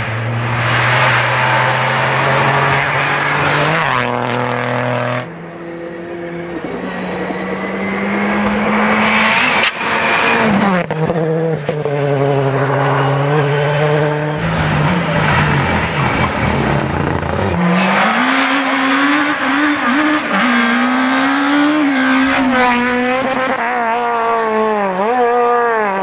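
Rally cars driven hard on a special stage, in a string of passes one after another. The engines rev high with quick gear changes, the pitch climbing and then stepping down, and the revs rise and fall through corners.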